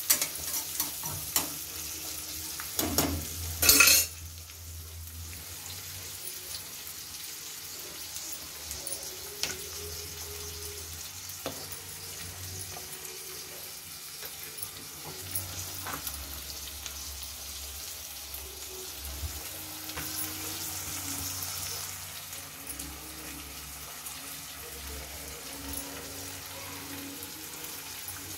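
Sliced onions frying in oil in a steel kadai. In the first few seconds a metal spatula stirs and scrapes the pan with clinks, and a loud scrape comes about four seconds in; after that the onions sizzle steadily, with an occasional faint clink.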